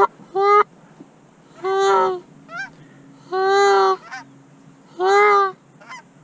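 Hand-blown Canada goose call giving loud, drawn-out honks about every second and a half, each answered by a short, clipped higher note, in the pattern used to call circling geese down to decoys.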